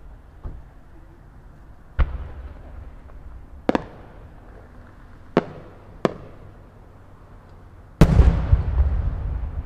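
Aerial firework shells bursting: several sharp, separate bangs. About eight seconds in comes a much louder boom from an 8-inch (No. 8) yaeshin double-petal peony shell, which trails off in a long rumbling echo.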